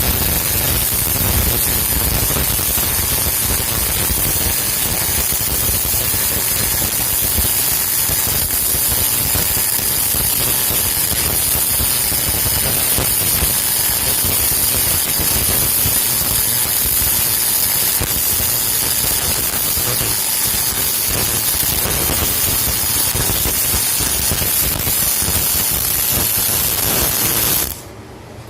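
MIG welding arc crackling steadily with a fast, even sizzle, cutting off abruptly near the end.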